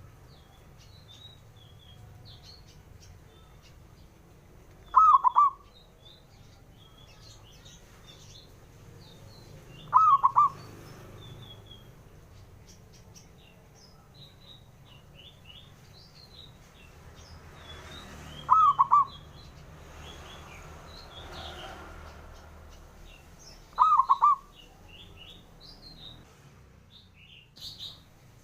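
Zebra dove (perkutut) cooing four times, each a quick run of a few rolling notes lasting about half a second, several seconds apart. Faint high chirps of small birds run underneath.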